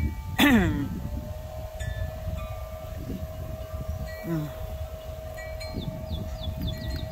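Wind chimes ringing, with several short tones and one long steady note that starts about a second in. About half a second in, a loud brief call or squeal drops sharply in pitch, and a few quick high chirps come near the end.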